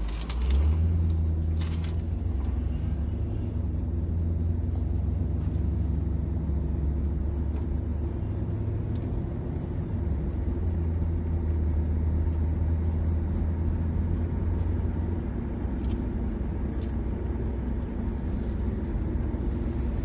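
2009 Dodge Challenger SRT-8's 6.1-litre HEMI V8 heard from inside the cabin: a steady low drone at low revs that swells about half a second in as the car pulls away, then holds through an unhurried low-speed roll with no revving.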